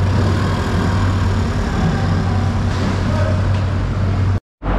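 Engines running: a steady low hum, with a motor scooter towing a cart as it pulls away. The sound drops out for a moment near the end.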